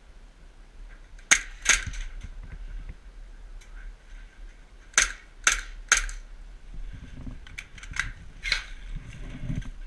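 CO2 airsoft pistol firing single shots: two sharp cracks about a second and a half in, then three more about half a second apart around five seconds in. Fainter clicks and a low shuffling follow near the end.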